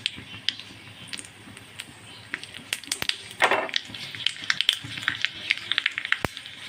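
Mustard seeds popping and crackling in hot oil in a small tadka (tempering) pan, with a dried red chilli and curry leaves frying beside them. The pops come much thicker from about four seconds in, as the tempering comes close to ready.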